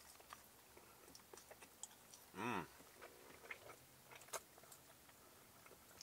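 Faint chewing and mouth sounds of a man eating a forkful of limp, cheese- and barbecue-sauce-covered loaded fries, with small fork clicks against the cardboard box. A brief hummed "mmm" comes about two and a half seconds in.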